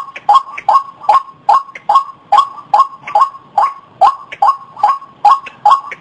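White-breasted waterhen giving its repeated 'ruak-ruak' call: a steady, fast series of short calls, about two and a half a second.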